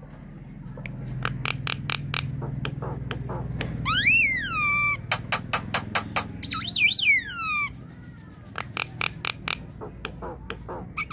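Javan myna singing: a long run of rapid dry clicks and rattles, broken by two drawn-out whistled notes, the first rising then falling about four seconds in, the second warbling then falling a couple of seconds later.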